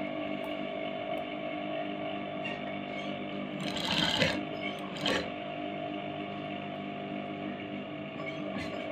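Electric sewing machine stitching along a fabric edge in two short runs, about four and five seconds in, over a steady motor hum.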